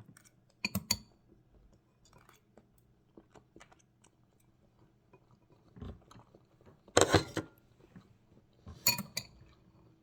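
Dishes and cutlery clinking and clattering in short bursts: one just under a second in, a smaller one about six seconds in, the loudest about seven seconds in, and another near nine seconds.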